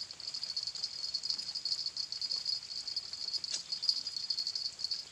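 Insects chirring in a steady, high-pitched chorus with a fast pulsing rhythm, and one brief faint click a little past the middle.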